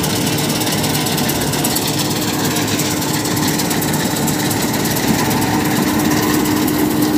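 John Deere W70 combine harvester running while cutting linseed: engine and machinery in a steady, dense, rapid clatter from the reel, cutter bar and threshing works, over a constant low hum. Its threshing drum has been set to a higher speed so that the green, damp crop stops dropping grain.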